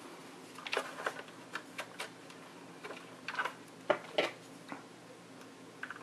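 Irregular light clicks and taps of hard plastic being handled as a robot vacuum's back grill and its wire connector are fitted into the housing.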